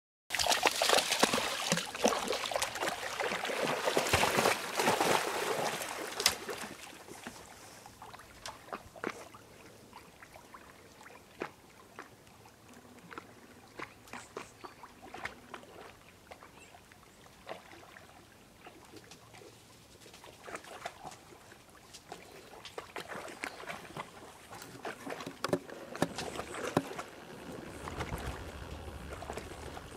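Two puppies splashing and paddling through pond water. The splashing is loudest in the first few seconds, drops to scattered small splashes while they swim, and grows busier again near the end.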